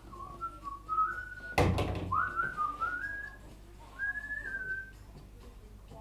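A person whistling a tune in short phrases of stepping, gliding notes, with a loud thump about one and a half seconds in.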